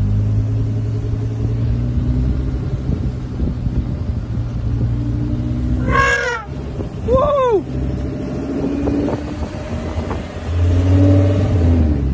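Car engine running steadily as the car rolls along, heard from inside the cabin, building up near the end as the car accelerates. About six seconds in, a short loud cry falling in pitch, and a second later a louder arched cry.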